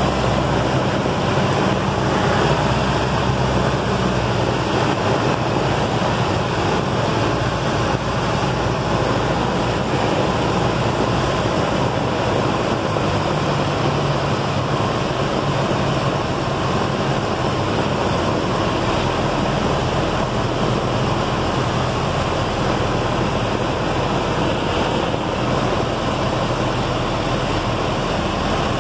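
Cabin sound of a Piper PA-28-161 Warrior on a power-off approach: the four-cylinder Lycoming engine idling with the propeller turning, under a steady rush of airflow over the cockpit.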